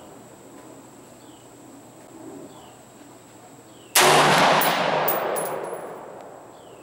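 A single unsuppressed AR-15 rifle shot, a sharp crack about four seconds in that echoes and dies away over about two seconds. Faint repeated chirps and a steady thin high tone sound underneath.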